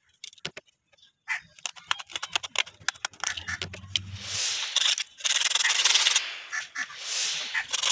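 Sandpaper rubbed by hand over the hard outer husk of a coconut shell, starting about halfway in as several long scratchy strokes with short breaks between them. Before that, a run of small clicks and taps from handling tools and the shell.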